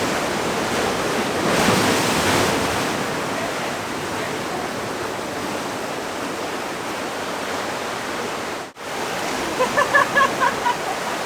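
Ocean surf washing in over shoreline rocks on an incoming tide: a steady rush of water that swells louder about two seconds in.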